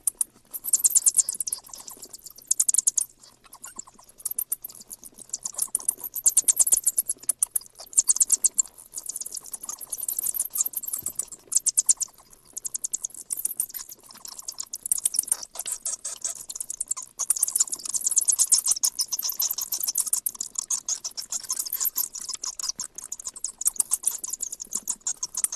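Small bat chittering: rapid, high-pitched clicking chirps in irregular bursts with short pauses.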